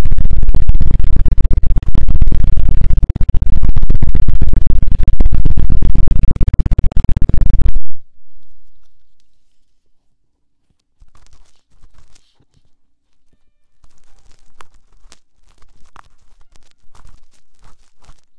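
Very loud, rapid scratching and rubbing right on an ASMR microphone, as in an ear-massage trigger, dense and heavy in the bass. It stops suddenly about eight seconds in. After a short pause, faint scattered taps and clicks follow.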